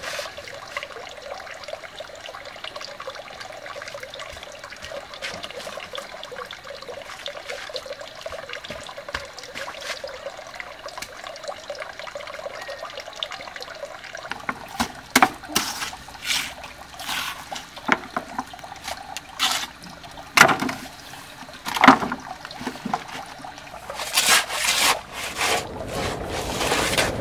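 Steady trickle of running water. From about halfway through, it is overlaid by a series of sharp knocks and scrapes of stone and mortar work as stones are set into the wall.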